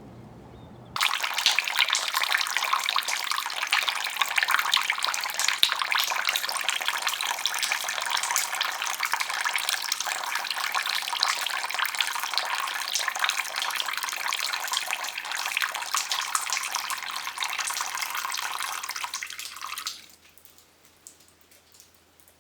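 Water running steadily, as from a tap, starting abruptly about a second in and stopping at about twenty seconds.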